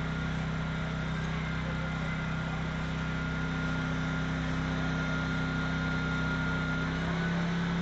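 An engine running steadily at constant speed: a low hum with a thin steady whine above it, shifting slightly in pitch near the end.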